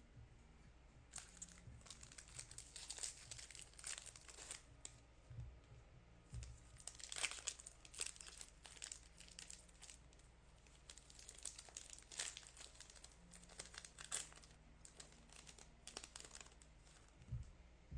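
Foil trading-card pack wrappers crinkling and tearing as packs are opened, faint, in irregular clusters of crackle with short pauses between.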